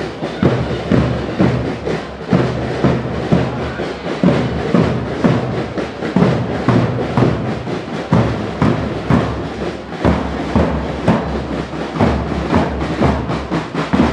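Marching band drums, bass drums among them, playing a steady, regular marching beat.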